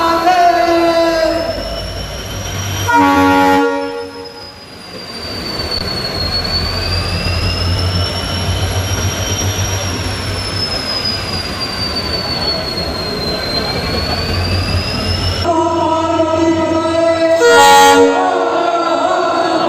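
Diesel locomotive horn sounding, with a loud blast about three seconds in and another near the end. Between the horn calls a low engine rumble runs as the 3000 HP Cape-gauge locomotive is flagged off.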